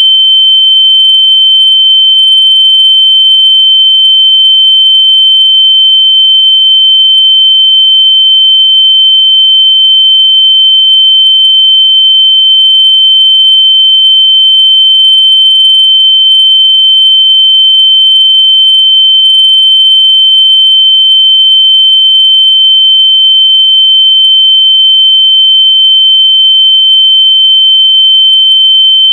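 A loud, steady, high-pitched electronic sine tone held at one pitch without a break, a locator tone played through earbuds to find lost AirPods.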